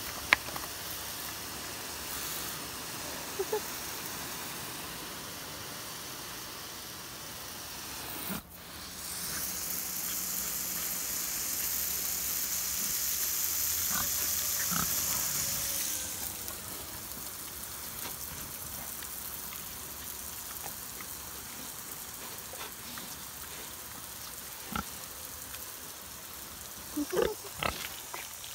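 Pigs grunting now and then while a garden hose sprays water. The spray hisses louder for several seconds in the middle, and a few grunts come close together near the end.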